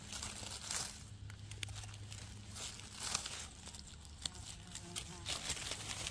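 Gloved hands rustling in dry leaf litter while picking chanterelle mushrooms and trimming them with a small knife: a run of short crinkling, crunching noises.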